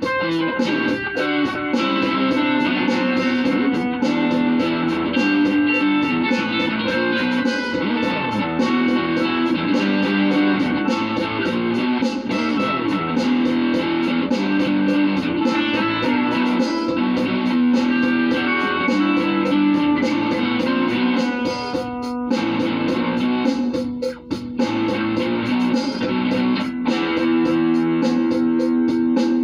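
Instrumental music led by plucked guitar, a continuous run of notes, with a brief drop in level about 24 seconds in.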